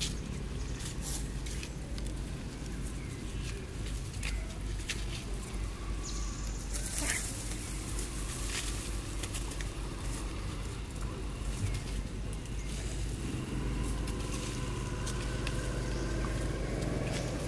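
Dry leaves rustling and crackling in short scattered bursts as young macaques scuffle and wrestle on them, over a steady low background rumble.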